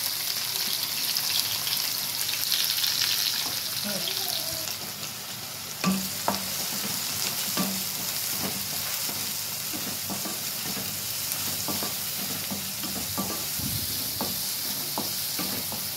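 Chopped onions sizzling in hot gingelly (sesame) oil in a non-stick kadai, with a wooden spatula scraping and knocking against the pan as they are stirred. The sizzle is strongest in the first few seconds after the onions go in; from about six seconds in the spatula strokes come as repeated short knocks.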